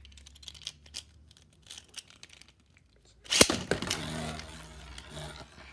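Faint plastic clicks as a Caynox C3 Beyblade Burst top is handled, then a little over three seconds in a sharp snap as it is launched into a plastic stadium, followed by the whirr of the top spinning on the stadium floor.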